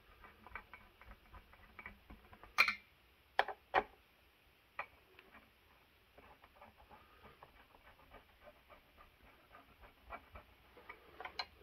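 Faint ticking and small clicks of a number two screwdriver turning the spring-loaded mounting screws of a CPU tower cooler down onto the motherboard bracket, with a few sharper clicks between about two and a half and five seconds in.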